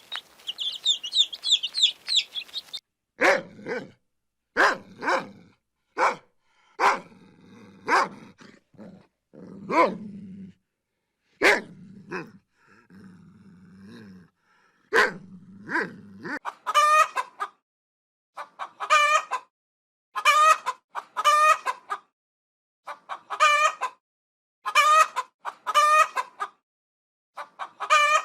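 Chicks peeping rapidly, then a long run of loud farm animal calls: short sharp calls at first, later ringing calls in pairs, each under a second long, repeating about every one and a half seconds.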